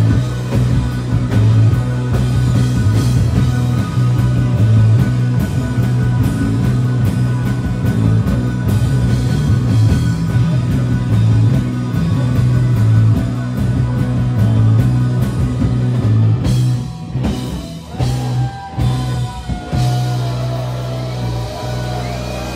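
Live rock band playing loud: electric guitars, bass guitar and drum kit. About three-quarters of the way through, the band drops into a run of short stop-hits, then a final chord is left ringing as the song ends.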